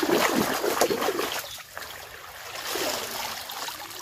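Water splashing and sloshing as a mesh basket is scooped through shallow water. It is loudest in the first second and a half, with a second, smaller splash about three seconds in.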